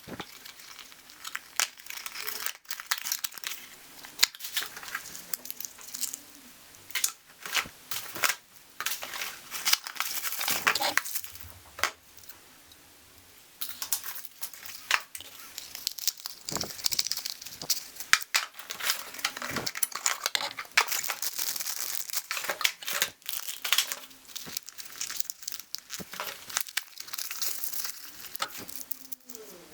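Workshop handling noises: a busy string of sharp clicks, clinks and knocks with rustling between them, as tools and engine parts are picked up and worked. There is a quieter pause about halfway through.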